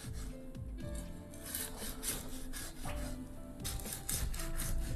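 Chinese cleaver slicing through deep-fried pork belly on a wooden cutting board, a series of repeated cutting strokes through the crisp fried skin. Quiet background music plays underneath.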